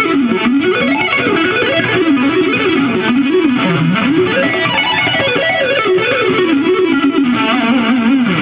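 Electric guitar playing a fast shred lick: rapid runs of notes zigzagging up and down in pitch, continuing without a break.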